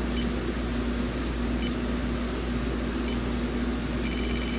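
Electronic refrigerant leak detector, set for R134a on high sensitivity, giving a short high beep about every second and a half, then from about four seconds in switching to a fast, near-continuous alarm tone as its probe reaches the A/C system's Schrader valve, which signals that it is sensing refrigerant. A steady low hum runs underneath.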